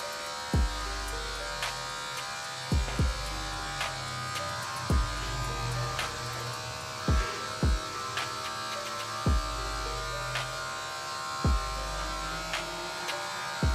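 Electric hair clipper buzzing steadily as it trims the ends of a tall afro. Background music with deep bass hits that drop in pitch, coming every second or two, is louder than the clipper.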